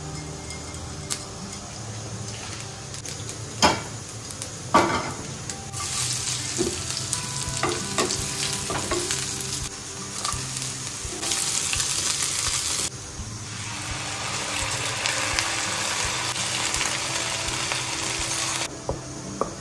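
Food frying and sizzling in a pan while being stirred, with the utensil clicking against the pan. There are two sharp knocks about four and five seconds in, and the sizzling gets loud about six seconds in.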